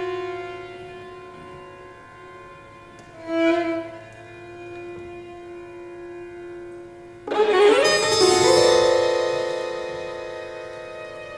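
Violins holding long, quiet notes, with a short swell about three and a half seconds in, then a sudden loud entry of the whole string ensemble about seven seconds in that slowly fades.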